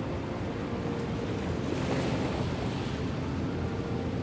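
Ocean surf washing over a rocky shore, a steady wash with a wave surging up about two seconds in.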